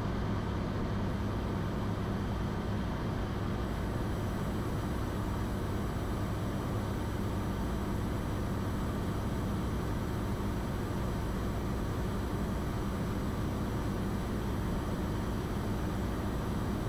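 Cirrus SR20's single piston engine and propeller droning steadily in flight, a constant low hum over a wash of airflow noise during the descent.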